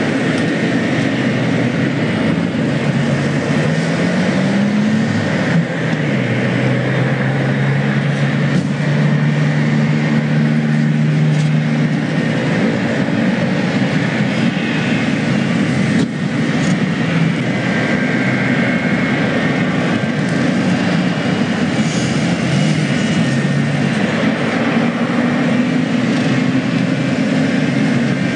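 Steady engine noise, with a low pitch that rises and falls about five seconds in and then holds steady.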